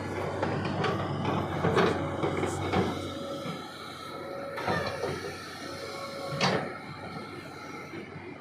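A steady mechanical hum with several sharp knocks and clunks, the loudest near 2 and 6.5 seconds in.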